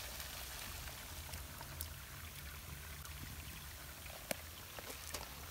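Hot rendered fat being poured from a pot into a steel bowl through a slotted spoon, a steady hiss of pouring, foaming fat, with a few sharp light clicks.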